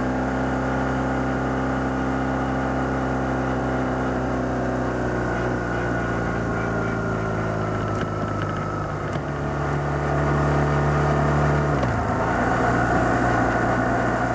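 BMW R1150R Rockster's boxer-twin engine running as the motorcycle is ridden. The engine note slowly falls over the first few seconds, then holds steady and grows a little louder, with a sudden dip and change in pitch about twelve seconds in.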